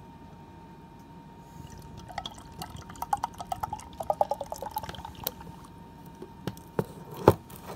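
Beer glugging out of an aluminium can into a glass, a quick run of gurgles from about two seconds in to about five seconds as the glass fills. A few sharp knocks follow near the end, the loudest just before the close.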